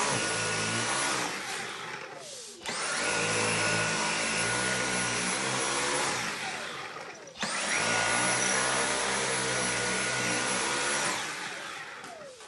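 Cordless stick vacuum cleaner run over a long-haired cat's coat. It is switched off and on repeatedly: its motor whine falls away as it spins down, then rises again as it restarts, twice, and winds down once more near the end.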